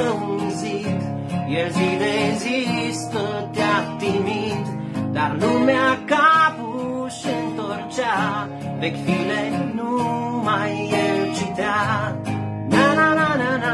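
Man singing a folk song to his own strummed acoustic guitar, his voice held out in long notes with vibrato.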